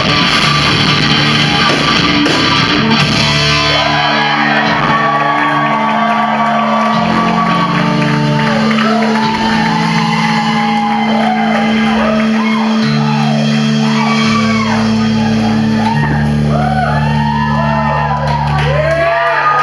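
Live rock band playing in a large room: electric guitar and held bass notes under a shouted, sung vocal.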